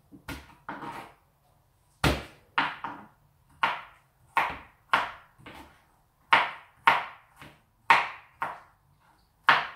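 Kitchen knife chopping ginger on a cutting board: sharp knocks about two a second, with a short pause about a second in.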